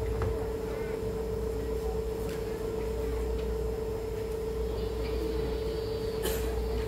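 Steady electrical hum at a single unchanging mid pitch, with a lower hum beneath it and room noise, and a few faint clicks.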